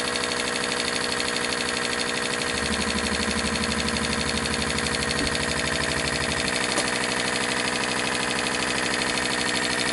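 Kouhoupt Radial 5, a model five-cylinder radial engine, running on compressed air: a fast, even run of exhaust puffs. A deeper hum joins for a few seconds in the middle.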